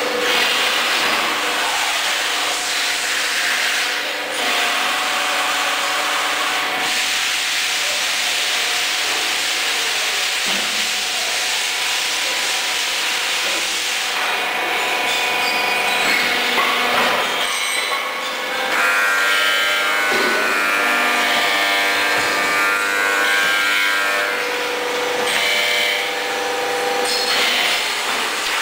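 Zitai 420-ton aluminium high-pressure die casting machine running through its cycle: a steady mechanical hiss and hum from the hydraulics, with a few brief dips and swells in level.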